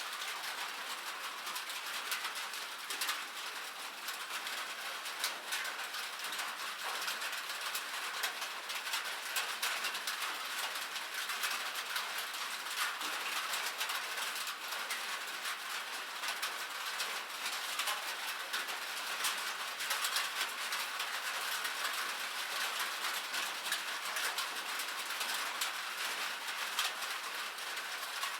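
Steady rain on a cabin roof: a constant hiss of rainfall carrying a dense, irregular patter of small drop ticks.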